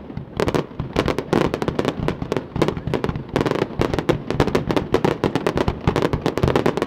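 Fireworks going off in dense, rapid succession: many sharp pops and crackles, several a second, overlapping one another.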